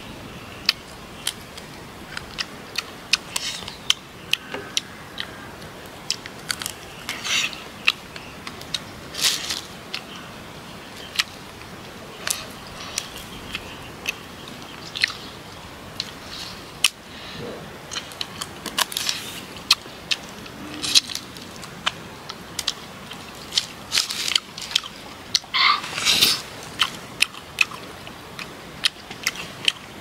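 A person eating rice and grilled quail by hand close to the microphone: chewing with many short sharp clicks and smacks, and a few louder crunchy bites.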